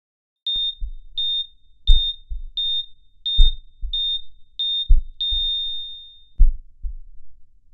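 Heart-monitor beep sound effect: a single high tone repeating about every 0.7 s, eight beeps, the last held for about a second and fading, over deep lub-dub heartbeat thumps about every second and a half.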